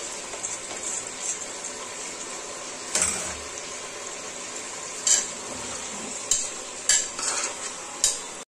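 Metal kitchenware clanking against a pressure cooker as meat and onions are tipped from a steel colander and stirred with a metal spoon: about five sharp clanks over a steady hiss. The sound cuts off suddenly near the end.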